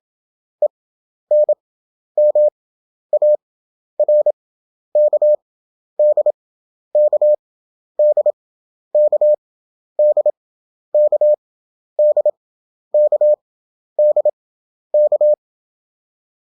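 Morse code practice tone, a single beep near 600 Hz, sent at 27 words per minute with wide Farnsworth spacing. Each letter is a quick group of dits and dahs, about one a second, and the sending stops about a second before the end.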